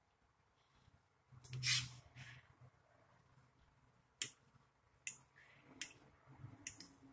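Quiet eating sounds: a louder smack-like noise about one and a half seconds in, then four or five sharp clicks of a metal fork against a plate.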